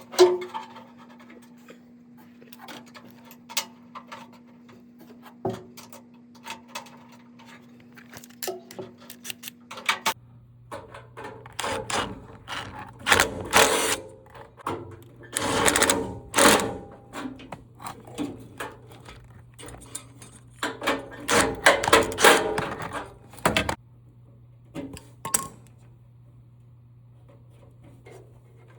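Clanking, clicking and scraping of metal parts being handled during a furnace blower replacement, with busier bursts of clatter in the middle. A steady low hum sits underneath and drops to a lower pitch about ten seconds in.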